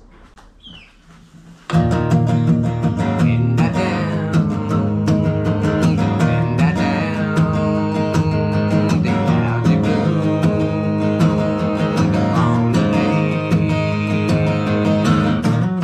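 Steel-string acoustic guitar being strummed, starting abruptly about two seconds in and carrying on as a steady, full strumming rhythm.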